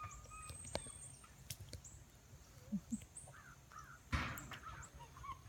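A monkey cracking and chewing nuts: scattered faint clicks and a short crunch about four seconds in, with a few faint animal calls in the background.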